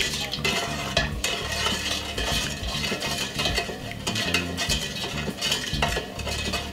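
A wooden spoon stirring liquid in a stainless steel bowl, a continuous swishing, with a couple of sharper knocks about a second in and near the end. The stirring is to dissolve brown sugar in the warm sorrel drink.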